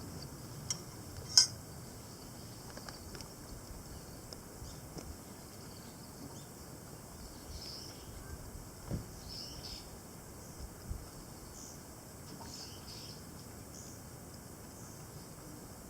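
Wood campfire burning with scattered crackles and one sharp pop about a second in, and a couple of soft knocks later on. Faint bird chirps run in the background.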